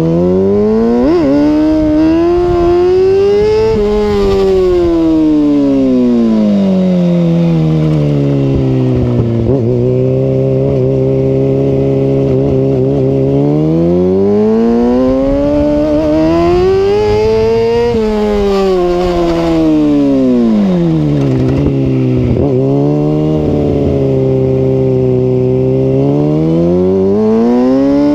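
Kawasaki ZX6 sport bike's inline-four engine breathing through a Two Brothers aftermarket exhaust, its revs climbing slowly and falling back twice, holding a steady lower speed in between and starting to rise again near the end.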